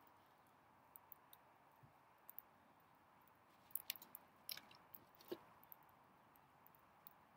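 Faint, scattered clicks and taps of a kitchen knife on a wooden chopping board as small vegetable pieces are cut. The taps come thickest about four to five seconds in, with one slightly heavier knock. Otherwise the background is near silent.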